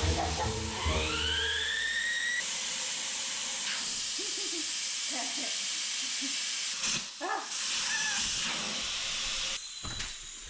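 Air hissing steadily out of a car tyre through its open valve stem, the valve core removed to deflate it; the hiss stops suddenly near the end. A rising whistle sounds about a second in.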